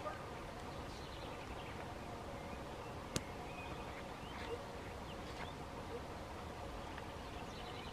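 Open countryside ambience: a steady low hiss with scattered short bird chirps, and a single sharp click about three seconds in.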